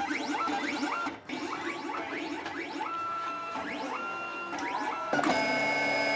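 Cutting plotter at work: its motors whine in repeated short rising sweeps and held steady tones as the cutting head and sheet move back and forth, with a brief break about a second in.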